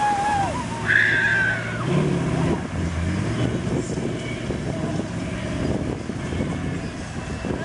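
Lifted Chevrolet pickup on mud tyres running as it pulls out of a mud pit and drives away, its sound easing off slightly as it moves off. A brief high-pitched sound comes about a second in.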